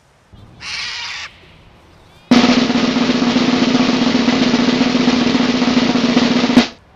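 Snare drum roll used as a suspense sound effect, running evenly for about four seconds and cutting off sharply. A short rushing noise comes about half a second in, before the roll starts.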